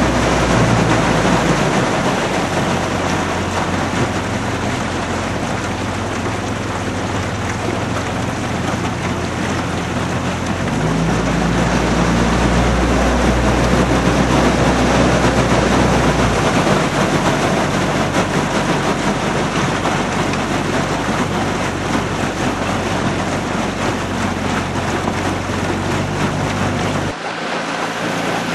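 A motorboat's engine running steadily under a rush of wind and water. Its low hum changes a few times and drops away near the end.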